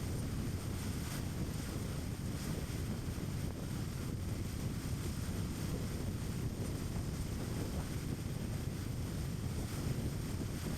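A car driving along at a steady speed: a constant low rumble of tyres on the road and the running engine, with no changes.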